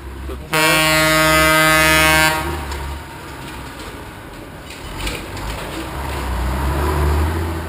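A loud horn blast about half a second in, held on one pitch for about two seconds. Then the low engine rumble of an approaching off-road truck, growing louder toward the end.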